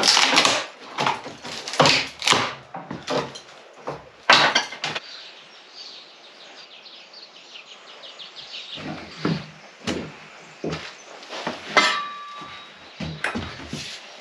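Hand tools knocking and scraping at a wooden lath-and-lime-plaster tabique wall as it is pried apart. There is a run of sharp knocks, a quieter lull midway, then more knocks, with a short squeak about twelve seconds in.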